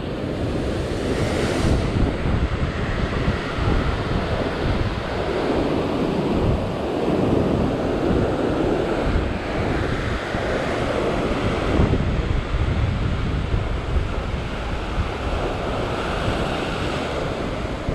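Heavy ocean swell surging and breaking over coastal rocks in a continuous wash of surf that swells and eases every few seconds, with wind buffeting the microphone.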